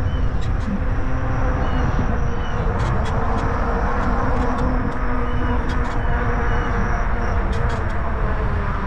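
Riding noise of a WIRED Freedom fat-tyre e-bike on a concrete path: a steady rush of wind on the microphone and rolling tyres, with sharp ticks every second or so.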